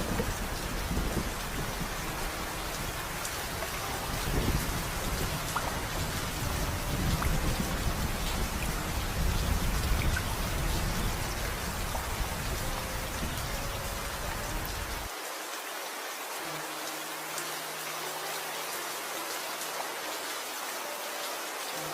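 Steady heavy rain with rolling thunder rumbling underneath, swelling and easing over the first two-thirds. The thunder cuts off abruptly, leaving only the rain hiss.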